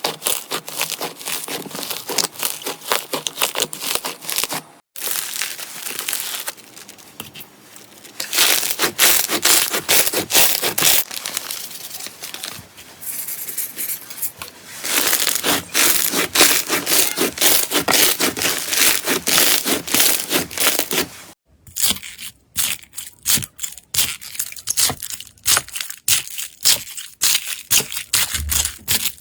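Slime being pressed and squeezed by hand, giving a dense run of crackling and popping. The sound breaks off briefly about five seconds in and again about two-thirds of the way through.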